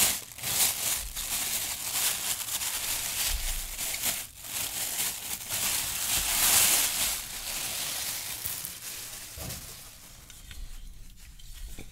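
Thin clear plastic bag crinkling and rustling as hands unwrap a toy accessory from it. The crinkling is loudest a little past the middle and dies down over the last couple of seconds.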